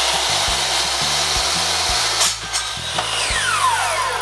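Electric miter saw running at full speed as its blade cuts through a polystyrene baseboard, then released about three seconds in so the blade winds down with a falling whine.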